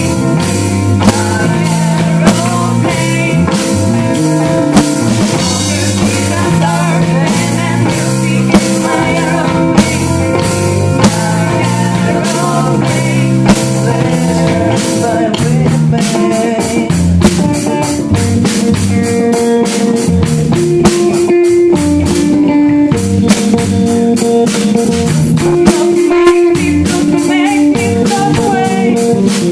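A rock band playing with a steady drum-kit beat, a moving bass line and electric guitar.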